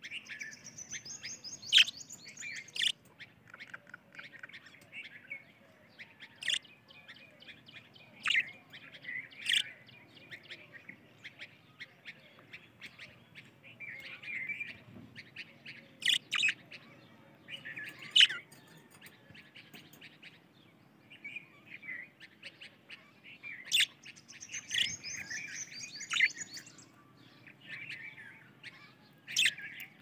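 Budgerigars chattering and warbling: a continuous twittering broken by many short, sharp, loud chirps.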